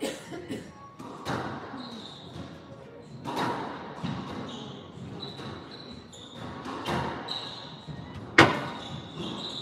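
A squash rally: the ball cracks off rackets and walls every second or two, with the loudest hit near the end, while court shoes squeak on the hardwood floor between shots.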